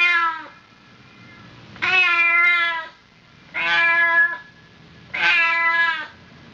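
Cat meow sound effect from a video editor's built-in sound library. It plays four separate meows, each under a second long and about a second and a half apart.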